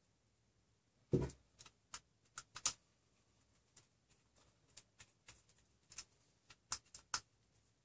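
Scattered light clicks and taps of a screwdriver and a plastic extruder body being handled while an M3 bolt is screwed in, with one duller, louder knock about a second in.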